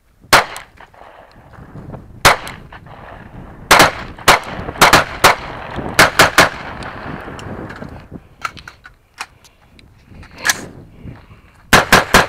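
Gunshots from a compact 9mm pistol, a Taurus 709 Slim, fired singly with uneven gaps, about a dozen in all. Near the end a fast string of shots follows at about five a second.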